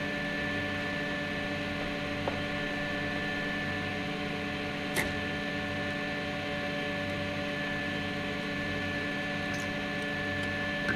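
Fullextruder PRO desktop filament extruder running: a steady mechanical hum with a thin high whine, and two light clicks about two and five seconds in.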